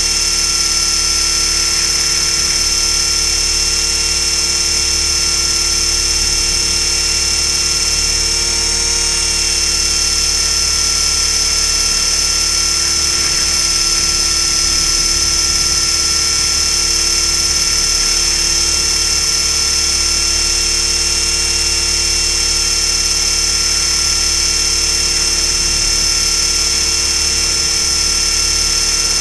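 Align T-Rex 500 electric RC helicopter heard from a camera strapped to its frame: the brushless motor, gears and rotor running at a steady speed, with a constant high whine over a low rumble and no change in pitch.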